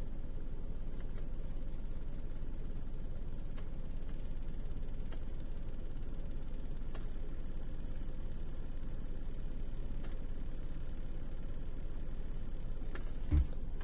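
Car engine idling, heard inside the cabin as a steady low rumble, with one short low thump near the end.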